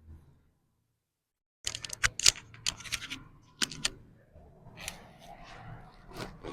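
Joints cracking during a chiropractic adjustment: a quick run of sharp pops and clicks starting a little under two seconds in, followed by softer rustling with a few more clicks.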